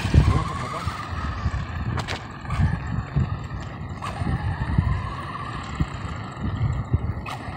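WLtoys 12428 RC buggy's electric motor and gears whining as it accelerates away over asphalt. The whine rises in pitch twice, at the start and again about four seconds in, over a low uneven rumble.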